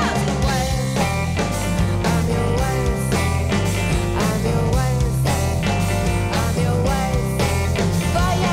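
Live rock band playing: a woman singing over electric guitar, bass guitar and a steady drum beat.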